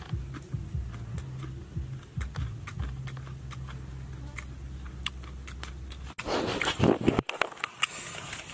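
Mouth clicks of chewing and lip-smacking over a low steady hum. About six seconds in this gives way to a louder rustling crackle of hands tearing apart a charred grilled fish on a leaf.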